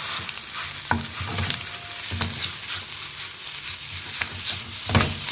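Boiled noodles and vegetables sizzling in hot oil in a pan while being stir-fried, the utensil knocking and scraping against the pan several times.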